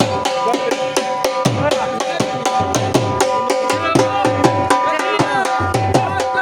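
Dhol drumming in a fast, steady beat, with held notes from another instrument sounding with it.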